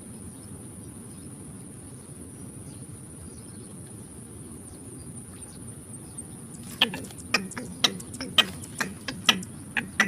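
A steady high insect-like hiss over a low rumble; about seven seconds in a bird starts calling, short sharp notes that each fall steeply in pitch, roughly two a second.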